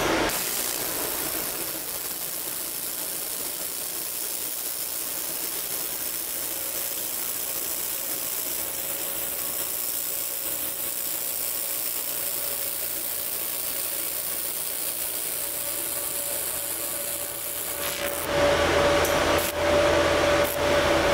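Handheld fiber laser welder running a weld on stainless steel at a 50,000 Hz laser frequency: a steady high hiss for about eighteen seconds. Then it cuts off and a louder steady fan hum with a few clicks takes over.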